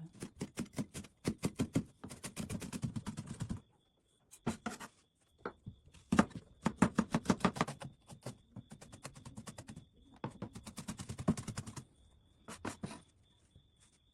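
Knife chopping quickly on a cutting board: rapid, even strokes, about seven or eight a second, in runs of a second or two with short pauses between.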